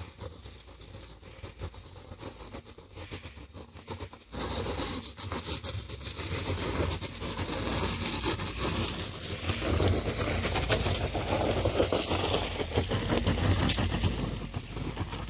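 Ford EcoSport driving over a rough dirt track: a continuous rumble of engine and tyres with many short knocks and rattles from the bumps. It gets suddenly louder about four seconds in.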